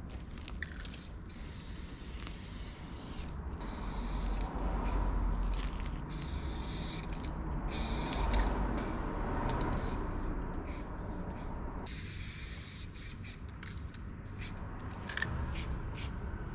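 Aerosol spray-paint can hissing in a string of bursts of different lengths, with short breaks between strokes as a tag is painted. A low rumble runs underneath.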